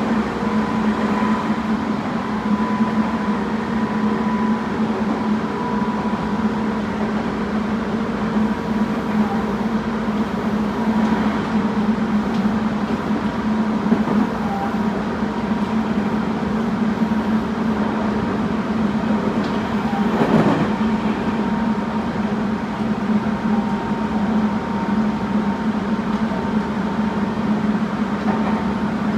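Tobu 20400 series electric train with a Toyo Denki GTO inverter, heard from inside the car as it runs along at a steady pace: steady motor and inverter hums over wheel-on-rail noise. There is one short knock about twenty seconds in.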